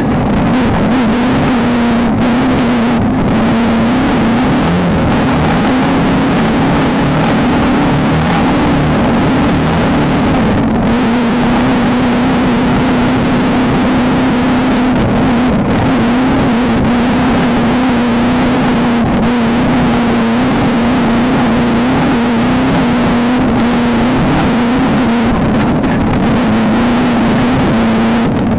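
VW Beetle-based off-road race car's engine running hard at high, nearly steady revs, with small dips in pitch every few seconds, over a constant loud rushing noise.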